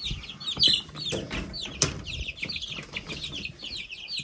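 A brooder of about 2.5-week-old Rhode Island Red and Black Australorp chicks peeping without a break, many quick downward-sliding peeps overlapping. A few sharp knocks and scuffles sound in the tub, the loudest about two seconds in.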